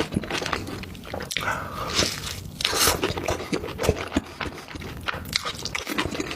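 Close-miked mukbang eating: repeated crisp bites and crunches into food, with chewing in between.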